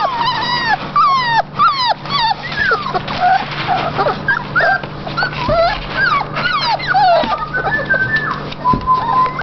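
A litter of young golden retriever puppies whimpering and squeaking: many short, high, mostly falling cries overlapping one another, with a longer, steadier whine near the end.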